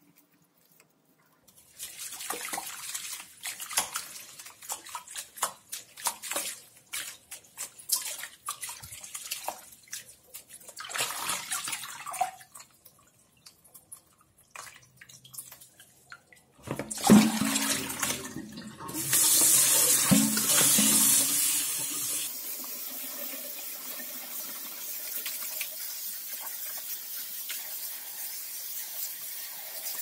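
Hands swishing and splashing a bunch of parsley in a plastic basin of water in a stainless steel sink, in irregular sloshes. About 17 seconds in, the tap is turned on and water runs steadily into the basin, loudest at first, then settling into a softer steady hiss as the basin fills.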